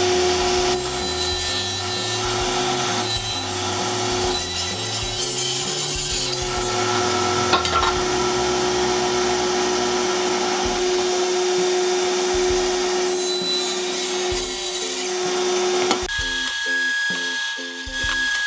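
Power saw running and cutting a cedar board to size, a steady motor whine over the noise of the cut, stopping about sixteen seconds in. Background music with a stepping bass line plays under it and is left alone after the saw stops.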